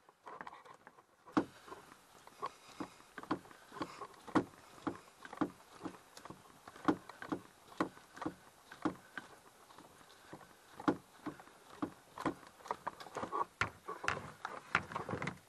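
Canoe paddles, held by bungee cords on the front of a canoe that is being carried over a portage, slapping against the hull as it is carried. There are about two sharp knocks a second, which the carrier calls really annoying.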